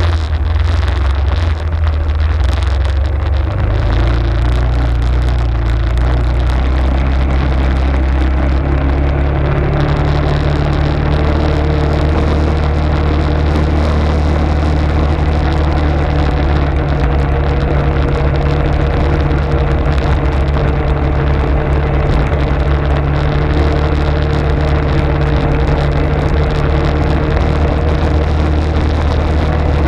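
Arctic Cat ATV engine running under way, its note climbing gradually over the first ten seconds or so and then holding steady.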